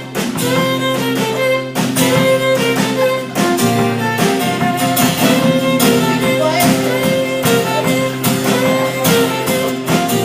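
Live band playing the instrumental opening of a song, with sustained melody notes over a steady beat.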